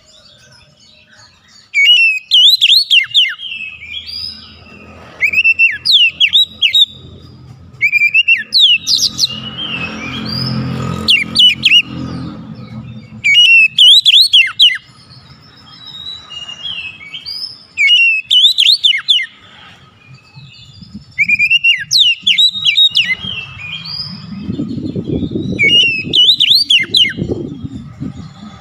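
Oriental magpie-robin singing: loud, rich whistled phrases about a second long, with quick up-and-down glides, repeated every two to three seconds with short pauses between.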